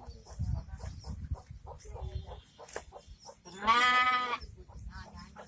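A goat bleating once about three and a half seconds in: a single wavering cry just under a second long. Low rumbling and scattered small clicks run under it.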